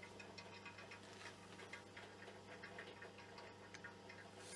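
Near silence: a low steady hum with faint, irregular metal clicks, as a digital caliper is worked against a turned steel part held in a lathe chuck.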